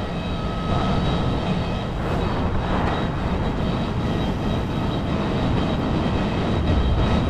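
Heavy engine machinery running steadily, a continuous droning rumble, with a faint high whine that fades out about two seconds in.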